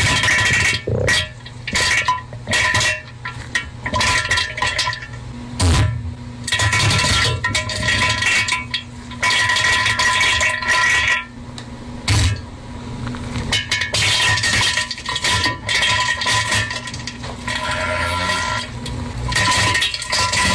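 Comic toilet sound effect: a rapid string of chopped, stop-start noises with buzzing pitched tones, cut together in quick pieces.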